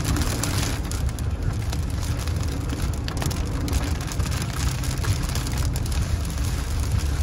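Heavy rain beating on a moving car's windshield and roof, heard from inside the cabin, over a steady low rumble of tyres on the wet highway.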